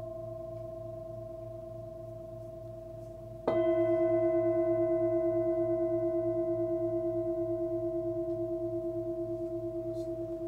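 A 24 cm hand-forged Nepalese singing bowl with a 111 Hz fundamental rings and fades. About three and a half seconds in it is struck again and rings out loudly with several overtones, wavering in a steady pulse as it slowly decays.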